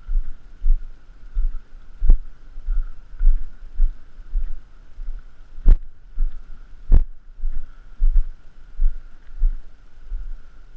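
A hiker's footsteps on a trail, heard through a head-mounted camera as low thuds at a steady walking pace of about one step every 0.6 s, with two sharper clacks near the middle. A faint steady whine sits underneath.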